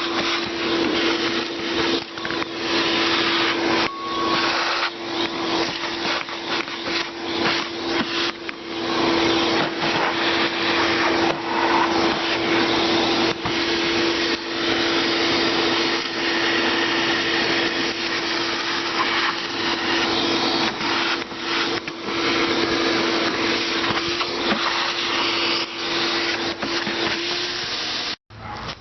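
Shop vac running, sucking dry leaves and debris out of the bottom of a heat pump's outdoor unit, a steady motor whine with frequent clicks and crackles of debris going up the hose. It cuts off abruptly just before the end.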